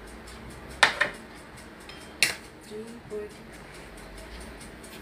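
A spoon clinking against dishes while batter is spooned into small baking moulds. There is a quick pair of clinks about a second in, then one more a little over two seconds in.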